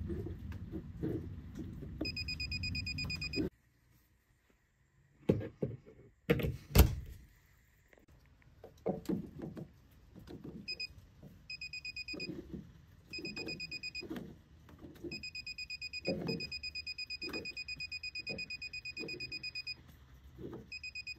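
UNI-T breaker finder's receiver giving a fast-pulsed high beep in bursts as its tip is passed over the breakers, with one long run of beeping near the end where it sits on the breaker carrying the transmitter's signal. Under the beeps, the probe tip scrapes and knocks against the plastic breaker handles, with one sharp knock about seven seconds in.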